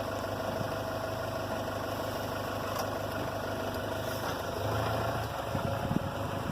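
Car engine running steadily with a low hum. From about five and a half seconds in, wind buffets the microphone in uneven gusts.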